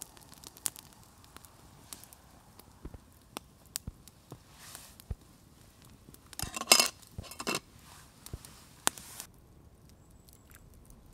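A small campfire crackling with scattered sharp snaps, mixed with clinks of camp cookware and a louder clatter about six and a half seconds in.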